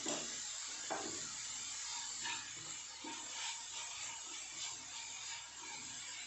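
Shredded vegetables sizzling in a nonstick kadai while a wooden spatula stirs and scrapes them, with a few light knocks of the spatula against the pan, the clearest about a second in.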